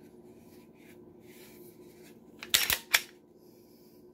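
Glock P80 pistol's slide pulled back and locked open: after some soft handling rustle, a quick run of sharp metallic clacks about two and a half seconds in, then one more click.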